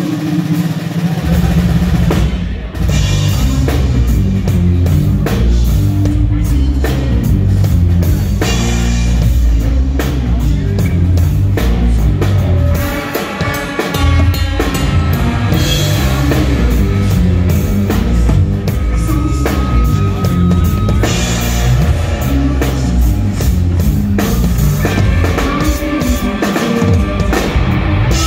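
Live rock band playing loudly: electric guitars, bass guitar and a drum kit with a heavy kick drum, the low end dropping out briefly near the middle before the full band comes back in.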